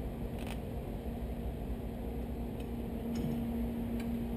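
A steady low shop hum, with a few faint light clicks as the brake shoes and their return springs are handled on the drum brake.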